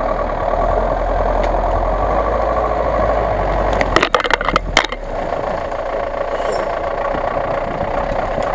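GAZ-66 off-road truck's engine running steadily under load as it crawls through snow. About four seconds in comes a quick run of sharp cracks and snaps as branches break and scrape against the truck.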